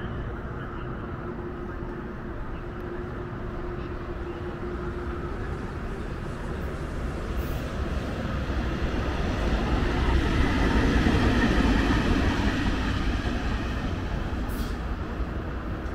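VL10U electric locomotive, a Soviet-built DC mainline engine, passing: a steady rumble of wheels on the rails that grows louder about two-thirds of the way through, then eases off.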